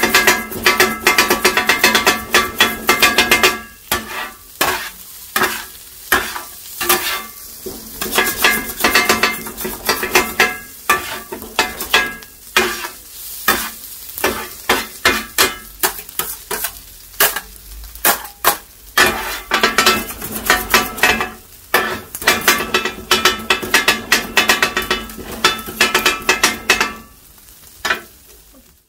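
Two steel kothu blades chopping kothu roti on a flat griddle: rapid runs of ringing metal clangs, broken by short pauses, stopping shortly before the end.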